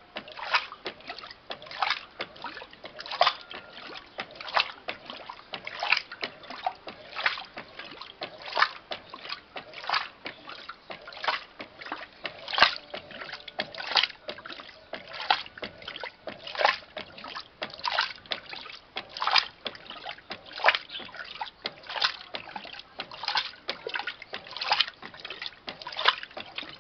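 Electrolux LTC07 top-loading washing machine agitating a full load of bedding and towels: water splashing and sloshing in the tub in an even rhythm, a strong splash about every second and a half with softer ones between, as the agitator swings back and forth.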